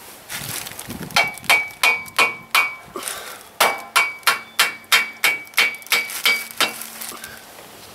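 Hammer tapping the swingarm pivot bolt through the frame of a Yamaha XT660R: sharp metallic blows, about three a second, each with a short ring, in a run of about five, a brief pause, then about ten more.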